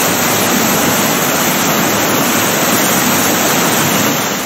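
Swift mountain river rushing over stones and gravel in shallow rapids: a loud, steady rush of water.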